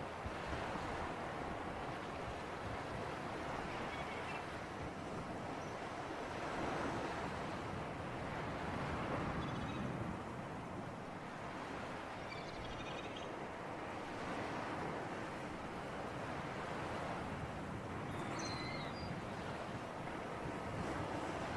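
Sea surf and wind: waves washing in and drawing back in slow swells every few seconds. A few faint, high, short chirps come through over it.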